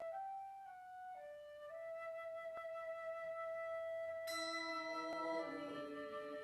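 Slow, quiet instrumental church music: a single flute-toned melody moving from note to note, joined about four seconds in by sustained lower notes and a brighter chord.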